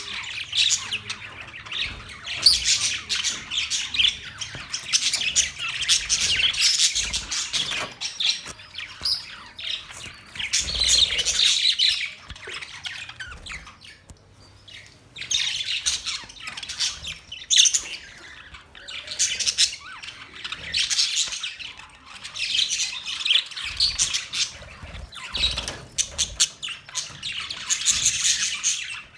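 Budgies chirping and warbling in busy, overlapping chatter, in bouts of a second or two with brief lulls.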